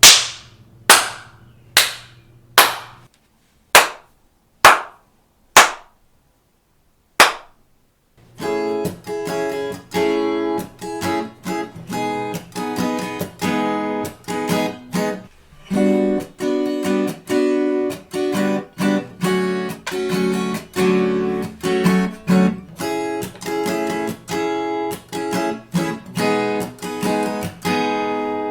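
About eight sharp hand claps with short, quickly dying decays, then from about eight seconds in a guitar strummed in steady rhythmic chords. All of it is heard in a small room treated with acoustic foam panels.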